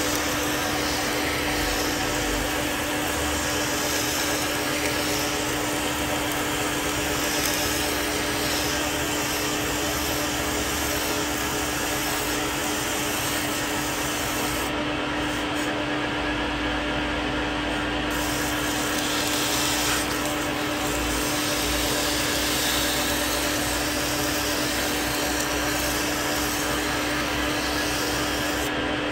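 Metal lathe running steadily while abrasive paper is pressed against a spinning steel tie-rod ball stud to polish it: a steady hum under a constant rubbing hiss.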